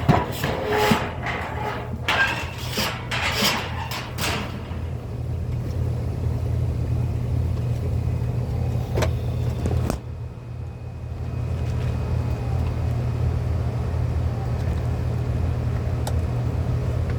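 A steady low mechanical rumble, with sharp clicks and clattering handling noises during the first four seconds.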